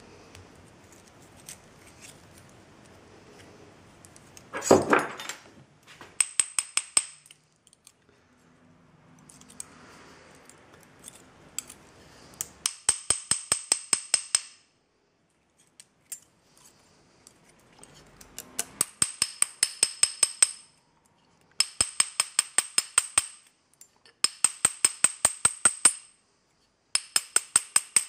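Small hammer tapping rapidly on a steel sleeve fitted to an aluminium belt-tensioner arm, in six short runs of quick metallic taps, about six or seven a second, each tap ringing. A louder clatter comes about five seconds in.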